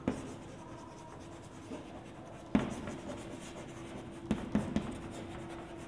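Chalk writing on a chalkboard: faint scratching of the chalk stick with a few sharp taps as it strikes the board, the strongest about two and a half seconds in and a quick run of them a little after four seconds.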